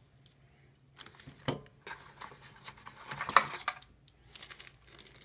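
Plastic packaging crinkling and crackling as it is handled and torn open, a run of sharp clicks and rustles starting about a second in and loudest around three seconds in.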